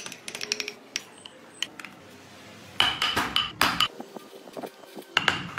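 Hand carving tools working wood: sharp clicks and metallic clinks as the chisel bites and scrapes, with a dense cluster of loud strikes about three seconds in.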